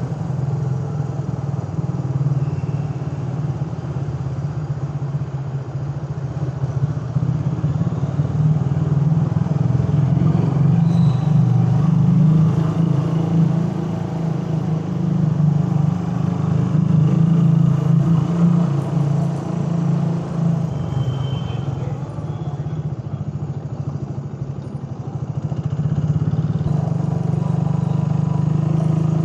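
Suzuki Raider 150's carbureted single-cylinder four-stroke engine running under way. The engine note eases off a little over 20 seconds in and picks up again a few seconds later.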